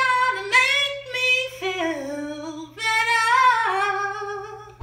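A woman's voice singing wordless ad-lib runs into a microphone, the melody sliding down and then climbing back up before trailing off near the end. A steady low hum sits underneath.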